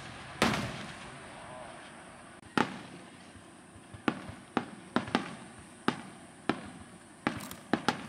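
Aerial firework shells bursting overhead. A big boom comes about half a second in and another about two and a half seconds in, each trailing off, then a run of smaller, sharper cracks about every half second through the second half.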